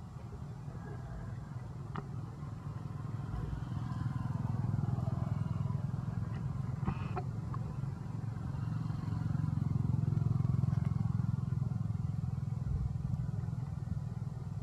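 Low engine rumble of passing motor vehicles, swelling twice as they go by, with a few faint clicks.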